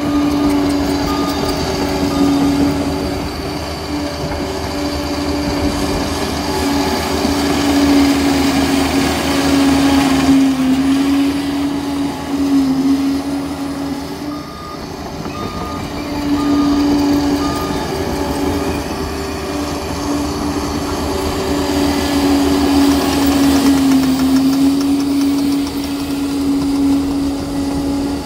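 Liebherr 746 crawler dozer's diesel engine running steadily under load, with a slight waver in pitch. Its reversing alarm beeps in a regular series at the start and again about halfway through as the dozer backs up.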